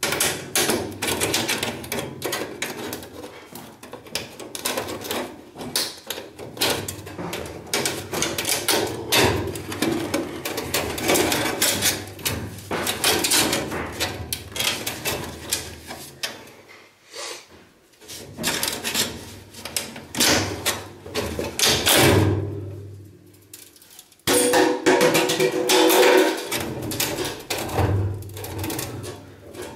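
Flexible aluminium flue duct crinkling and crackling as it is gripped, squeezed and pushed into place by hand. It comes as a dense, irregular run of sharp crackles, with brief pauses about two thirds of the way through.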